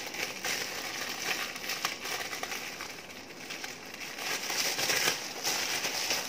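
Clear plastic wrap crinkling and crackling as it is pulled and torn off a cardboard toy box.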